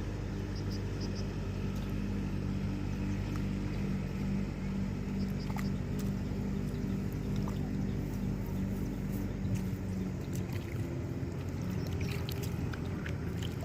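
A small engine running steadily, its note changing about ten seconds in.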